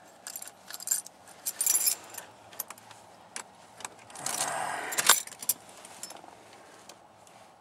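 A bunch of keys on a keyring jangling and clinking while the right key is sorted out, with a louder rattle about four seconds in that ends in a sharp click.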